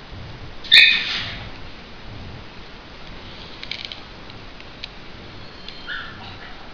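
Foil-backed origami paper crinkling faintly as small folds are pressed by hand. A sudden sharp squeak about a second in is the loudest sound, and a shorter chirp comes near the end.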